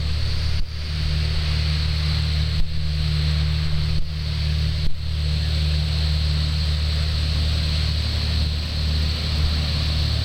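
A fire boat's engines run steadily while its pump drives the water monitor, giving a low, even drone under a constant hiss. The sound breaks off briefly a few times in the first five seconds.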